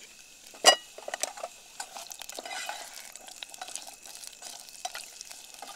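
Onion and capsicum frying in hot oil in a kadai while being stirred with a metal spoon: a soft sizzle with scattered scrapes and light clicks, and one sharp metal clink with a brief ring just under a second in.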